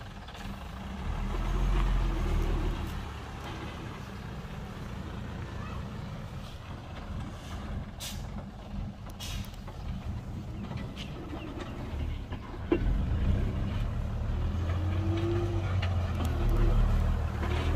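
Heavy dump truck's diesel engine running with a low rumble, growing louder about a second in and again in the second half. Two short hisses come around the middle.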